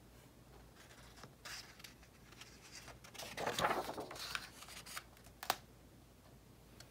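Page of a hardcover picture book being turned by hand: soft paper rustling and sliding, strongest in the middle, with one sharp tap near the end.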